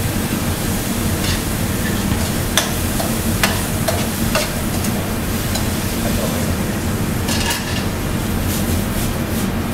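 Stir-fry sizzling in a hot wok as it is stirred and tossed with a metal spatula and ladle, with scattered clinks and scrapes of metal on the pan over a steady low hum.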